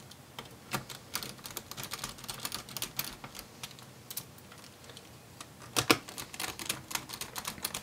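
Small Phillips screwdriver driving tiny screws into a laptop's metal support bar: light, irregular clicks and ticks of the tool and screws, with one louder click a little before the end.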